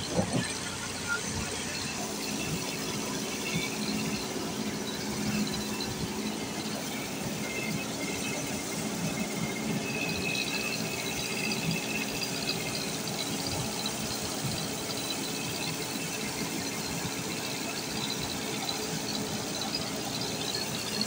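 Rice mill machine running steadily, a continuous mechanical noise with several held tones at once.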